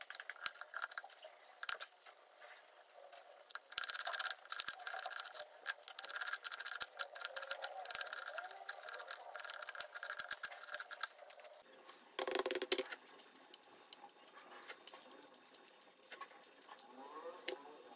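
Kitchen knife slicing red onion on a plastic cutting board: a run of quick cuts, each stroke a sharp tap of the blade on the board. About two thirds through comes a brief louder rustle, then softer crackling as the shell is peeled off a boiled egg.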